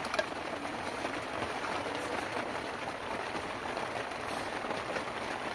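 Rain falling steadily, with one small sharp knock just after the start.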